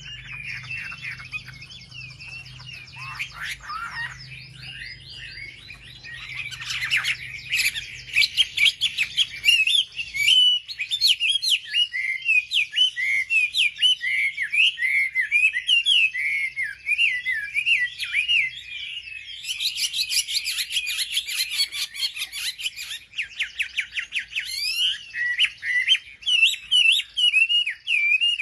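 Wambi bird singing a long, fast run of chirps and whistled notes that repeat with little pause, the kind of song kept birds are made to hear so they answer back. A faint low hum sits under the song for the first ten seconds or so.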